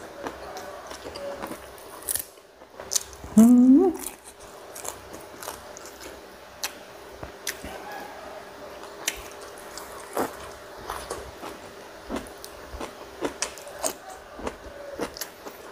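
Close-up eating sounds of a man eating papaya salad by hand: chewing, lip smacks and crunchy bites, with many short sharp clicks. About three and a half seconds in there is one short, loud vocal sound that rises in pitch.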